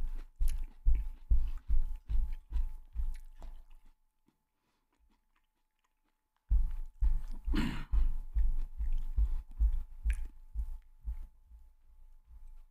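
Someone chewing and crunching food close to the microphone, at about two or three chews a second. The chewing stops for about two seconds in the middle and then goes on.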